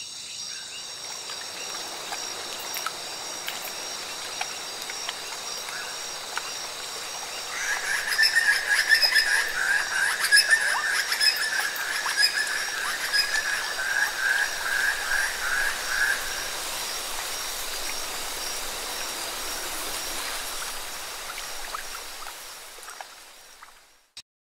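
Nature ambience under an animated intro: a steady high chirring with a louder pulsing trill, an animal call, from about 8 to 16 seconds. It fades out near the end.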